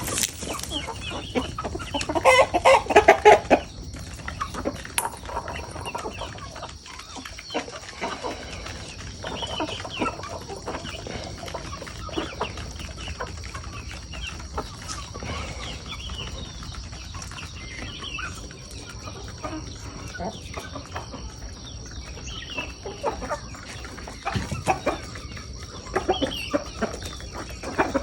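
Chickens clucking, with a louder cluster of calls about two to three seconds in and scattered clucks after.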